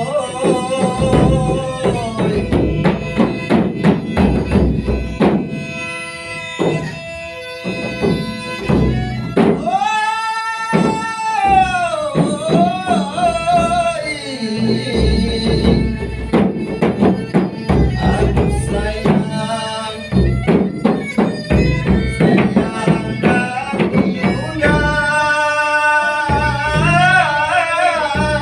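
Traditional Malay dendang folk song: a singer's long, ornamented melodic lines over a steady pattern of hand-drum strokes.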